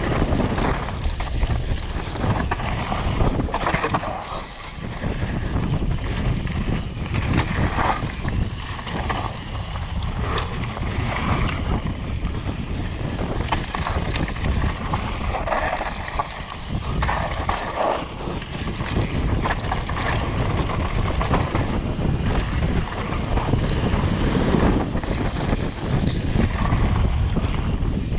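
Wind buffeting the microphone and a downhill mountain bike rattling over rough trail at speed: a steady rush of noise broken by many small knocks, dipping briefly about four seconds in.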